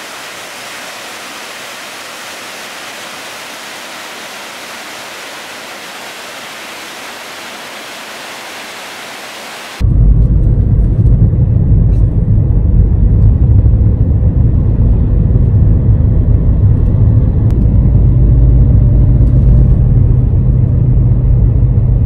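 Steady rush of Christine Falls for about the first ten seconds. It then cuts abruptly to the loud, low rumble of a car driving, heard from inside the cabin.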